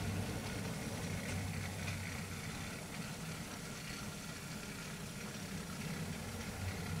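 Model railway goods train running slowly along the track: a steady low hum from the locomotive's motor and running gear, with a few faint clicks from the wheels.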